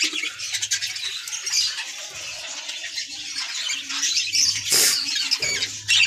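A flock of budgerigars chattering with many quick high chirps and squawks, with one short sharp knock about five seconds in.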